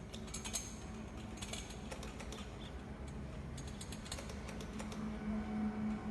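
Flashlight switch clicking in quick groups separated by short pauses, a light being keyed on and off to send the Morse letters of the word MISS.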